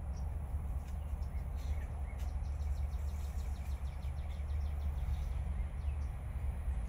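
Outdoor ambience: a steady low rumble with faint bird chirps over it, including a quick run of high chirps from about two and a half to four seconds in.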